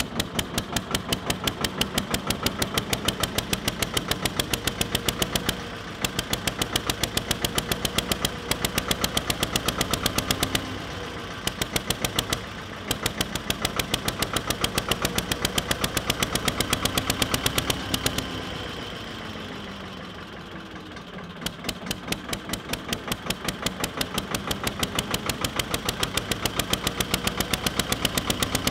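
Armstrong Siddeley diesel engine of a generator set running just after starting, with rapid, evenly spaced exhaust beats. The beat falters several times, longest about 18 seconds in, where the engine slows for a few seconds before picking up speed again.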